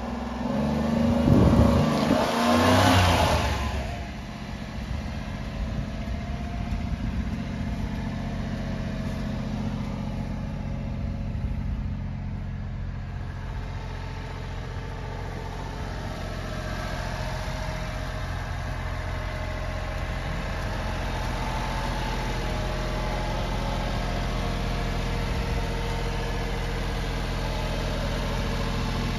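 Engine of a 1994 Honda Acty kei truck, a small 660 cc three-cylinder, louder for the first few seconds as the truck drives up, then idling steadily.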